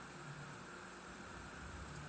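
Cooling fans of an open desktop PC running: a steady, even hiss with a faint low hum.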